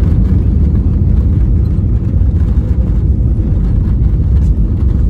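Jet airliner's landing roll just after touchdown, heard from inside the cabin: a loud, steady low rumble.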